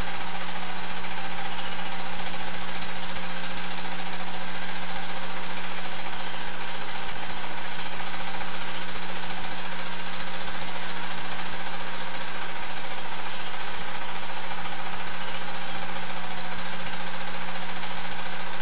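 Super 8 film projector running: a steady motor hum with a fast, even clatter from the film-advance mechanism.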